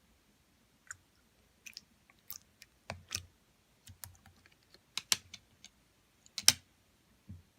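Clear slime being pressed and stretched by hand, giving irregular sticky clicks and small pops, the loudest about six and a half seconds in.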